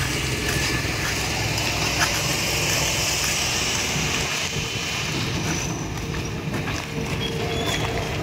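Steady street noise: a continuous low engine-like rumble with a higher hiss over it, the hiss easing a little after about five seconds, and a few faint clicks.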